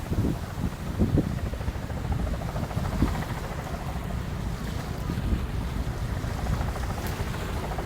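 Gusty wind buffeting the microphone, a steady low rushing noise with no clear engine tone.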